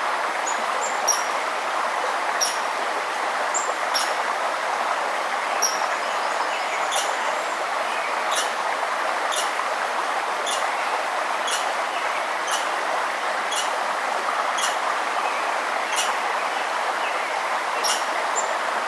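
Steady rush of river water, with birds giving short, high chirps about once a second over it.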